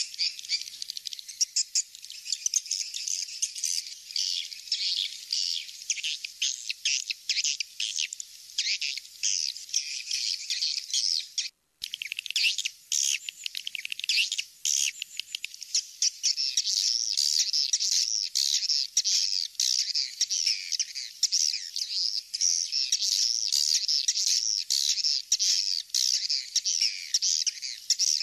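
Swiftlet lure call played for a swiftlet nesting house: dense, rapid, high-pitched twittering chirps of swiftlets, with a brief break about twelve seconds in.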